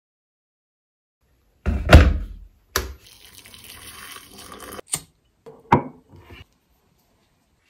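A heavy thump, then water poured from an electric kettle into a mug for about two seconds, ending in a sharp click. Shortly after comes a short knock of a glass set down on a table.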